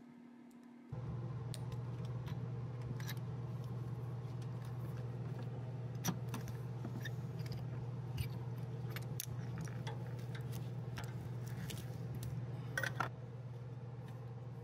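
Scattered metallic clicks and clinks of a ratchet, extension and spark plug socket as a spark plug is turned in its well. A quick cluster of clinks comes near the end. Under it is a steady low hum that starts about a second in.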